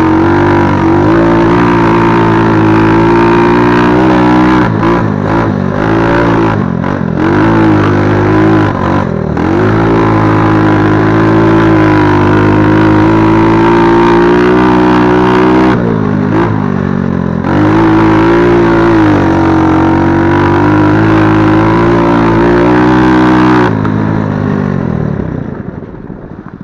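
Small 110 cc four-stroke quad engine running hard under load, its revs dipping several times as the throttle is eased and picked up again. Near the end the revs fall away and the engine drops to a much quieter idle.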